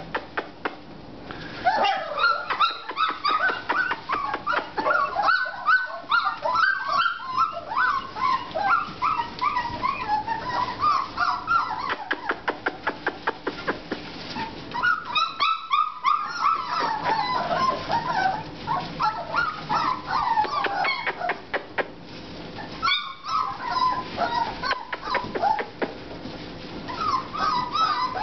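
A litter of 4½-week-old American Bulldog puppies whimpering and yipping together, many high-pitched cries overlapping, with a few brief lulls. Many quick clicks run underneath.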